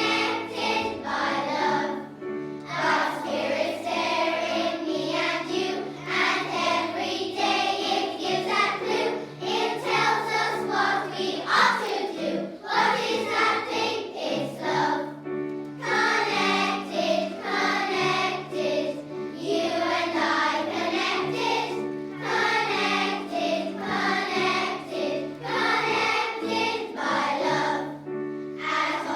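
A children's choir singing a song together over an instrumental accompaniment of held low notes.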